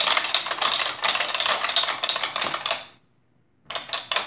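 Rapid, irregular plastic clicking and clacking from the Hydro Strike tabletop game's side buttons being pressed. It stops abruptly near the end and resumes after a moment of silence.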